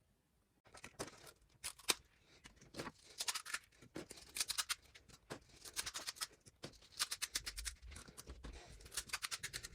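Crisp crackling and clicking in rapid irregular bursts as something dry and brittle is handled.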